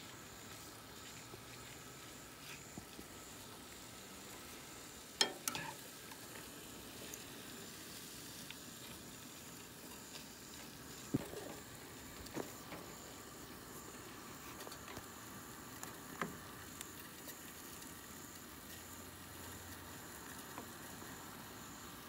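Chicken pieces frying quietly in a skillet on a propane camp stove, a faint steady sizzle, with a few sharp clicks of the spatula against the pan, the loudest about five seconds in.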